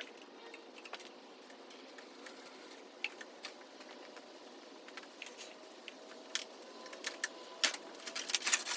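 Scattered light clicks and taps of hand work on a motorcycle's fairing, coming more often near the end.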